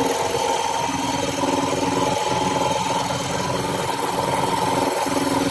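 Upright air compressor running and pumping up, its new 5 HP, 3450 rpm electric motor driving a three-cylinder pump, with a steady mechanical hum.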